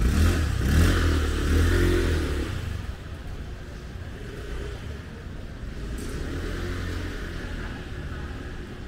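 A motor vehicle's engine running close by, loudest in the first two to three seconds, then easing to a lower, steady rumble.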